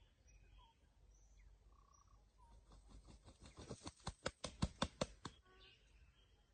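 Rooster beating its wings: a quick run of about a dozen sharp flaps, about six or seven a second, growing louder and then stopping abruptly. Faint bird chirps sound in the background.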